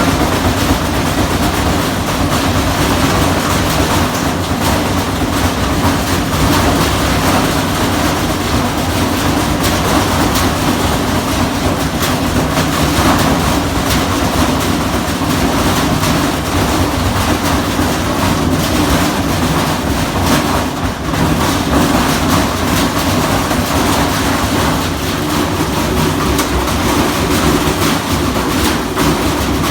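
Washing machine running hard: a steady mechanical hum with fast, continuous clattering and knocking.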